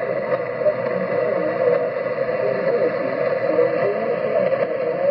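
Kenwood HF transceiver's speaker giving steady shortwave static with faint, garbled wavering sounds in it, such as a weak single-sideband voice makes. The uploader takes it for an oceanic weather broadcast.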